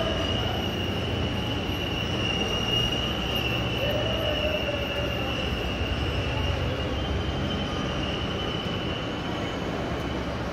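Steady running noise of jaggery-plant machinery: a low rumble with a constant high-pitched whine over it.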